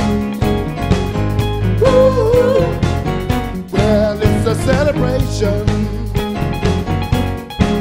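A rock-and-roll showband playing live: a steady drum beat and bass under guitar and keyboards, with a wavering lead melody line on top.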